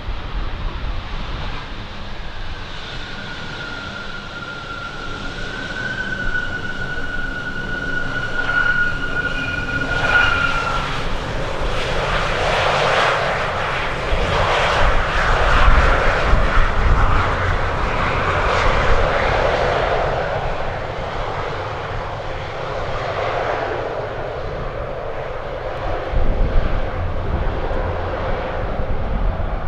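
Jet airliner passing: a steady high engine whine for the first ten seconds or so, then the engine noise swells to its loudest about halfway through and slowly fades. Gusty wind rumbles on the microphone throughout.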